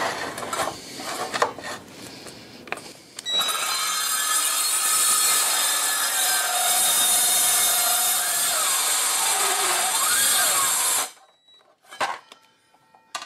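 Metabo MKS 18 LTX cordless metal-cutting circular saw (cold saw) cutting through 12 mm steel plate. After a few quiet clicks it bites in about three seconds in, runs steadily under heavy load with a high-pitched cutting noise, then cuts out suddenly about eleven seconds in. The owner puts the stop down to the thermal overload, or to a drained battery.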